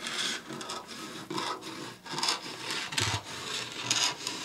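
Dressmaker's shears cutting through a sheet of pattern paper in a run of short, uneven snips, with the paper rustling as it is cut and moved.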